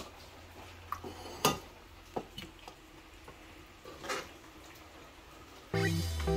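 A few scattered clinks and knocks of kitchen utensils on cookware, the loudest about a second and a half in. Electronic background music starts abruptly near the end and is the loudest sound.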